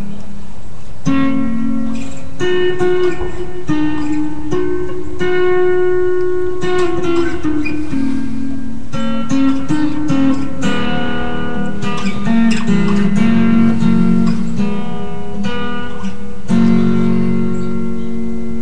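Acoustic guitar strumming a slow run of chords, moving to a new chord every second or two.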